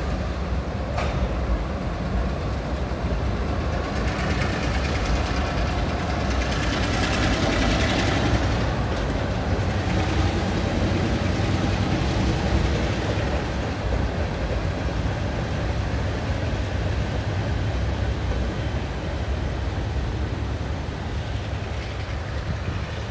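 Freight train rolling across a railroad bridge: a steady rumble of steel wheels on the rails, somewhat louder around the middle as the cars pass closest.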